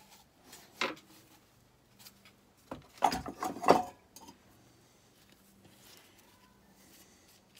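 Metal parts clanking and knocking together, a quick cluster of hits about three seconds in after a single click, as the camshaft and cam gear are worked out of a Kohler K241 engine's crankcase.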